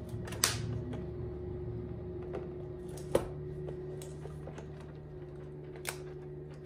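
Handling noise from an iPad Pro tablet being moved and set against its folio case on a desk: a few sharp taps and clicks, the clearest about half a second, three seconds and six seconds in. A steady low hum runs underneath.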